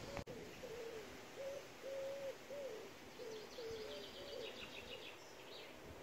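A pigeon cooing faintly in a repeated series of short, low notes, some sliding down in pitch. A small bird twitters briefly and high in the middle.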